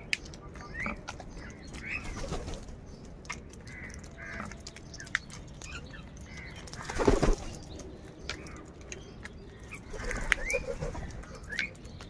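A flock of house crows calling with short, scattered caws while feeding, with a louder flurry about seven seconds in and another busy stretch near the end.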